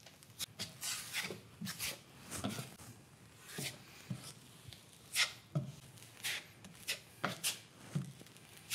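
Broad knife spreading air-drying plasterboard compound over a painted wall and patch: a run of short, irregular scraping strokes, about two a second.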